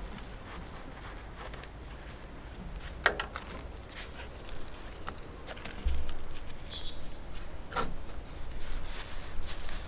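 Gloved hands working a small plastic nursery pot off a succulent's root ball: soft rustling and crumbling of soil, with two sharper crackles of the plastic pot, about three seconds in and near the end. A short high chirp sounds about seven seconds in.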